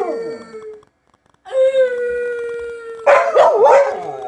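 Siberian husky howling: one howl trails off with falling pitch, then after a short pause a long howl held on one note breaks into wavering, up-and-down woos near the end.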